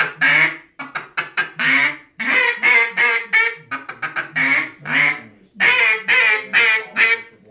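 Handmade Mass Hen duck call blown in a feeding sequence: a run of quick chuckles about a second in, then a string of drawn-out hen quacks. The call imitates ducks contentedly feeding and hanging in a group.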